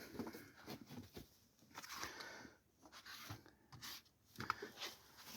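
Faint, scattered clicks and rustles of small parts being handled while a furnace inducer motor is reassembled by hand.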